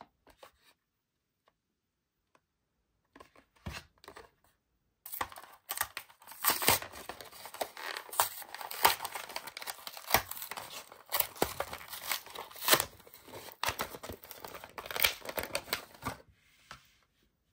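Plastic blister pack and its cardboard backing card being torn open by hand: a few faint handling sounds, then about eleven seconds of continuous crinkling and tearing with many sharp crackles of the plastic. The sound stops shortly before the end.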